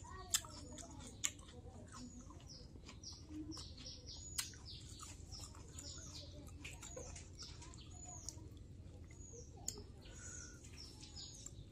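Small birds chirping over and over, short high chirps that each drop in pitch, several a second, with a few sharp clicks in between.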